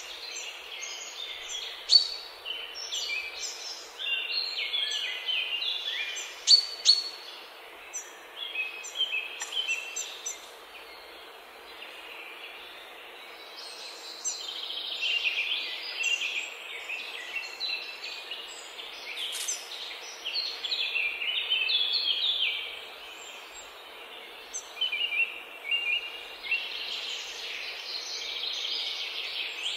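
Several songbirds chirping and singing in overlapping bursts, with a few sharp, loud chirps, over a steady background noise.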